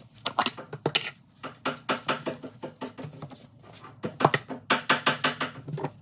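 Rapid, irregular clicks and clatters of dishes and food being handled in a small kitchen, loudest about a second in and again just past the middle.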